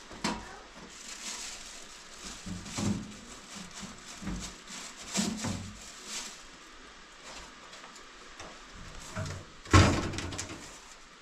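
Scattered knocks, bumps and rustling of things being handled in a small kitchen, with one loud thump near the end.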